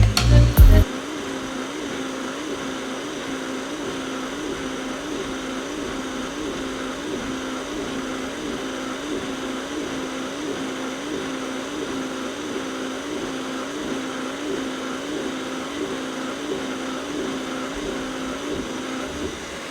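Eufy RoboVac 30C robot vacuum running, its motor and brushes whirring steadily with a slow, regular wavering in pitch.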